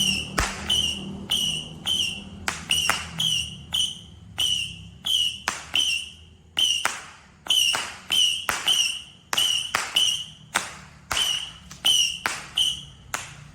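A 50-shot missile firework cake firing shot after shot, about two a second, each shot a sharp pop followed by a short whistle. The last shot goes off shortly before the end.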